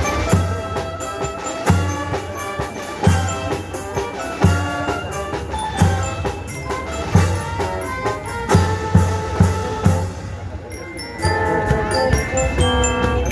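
School band music: heavy drum beats about every second or so under a bright, bell-like mallet melody, thinning out briefly near the end before the full band comes back in.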